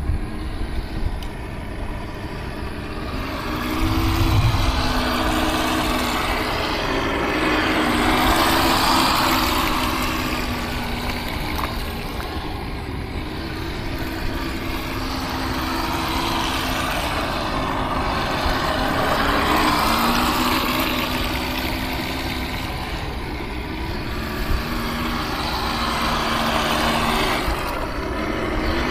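Radio-controlled toy boat's motor whining and its hull churning the water. The sound swells and fades several times as the boat circles past.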